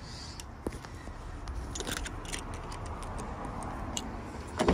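Scattered light clicks and scuffs of handling by the car, then a single loud clunk near the end, typical of a car door.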